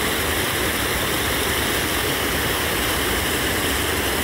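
Water rushing steadily through a concrete canal gate.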